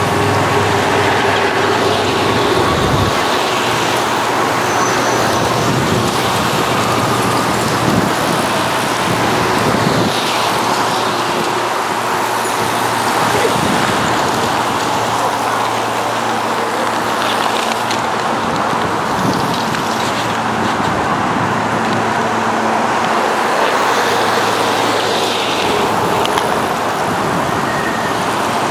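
Steady road noise: a continuous hiss of traffic, with bicycles coasting past on wet tarmac.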